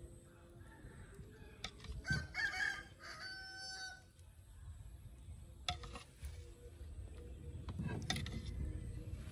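A rooster crowing once, about two seconds in, ending on a held note. A few light clinks of a metal spoon against a bowl.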